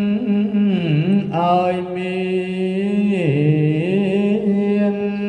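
Cambodian Buddhist monk chanting a sutta into a handheld microphone in one drawn-out melodic voice. He holds long notes, with the pitch dipping and returning about a second in and again about three seconds in.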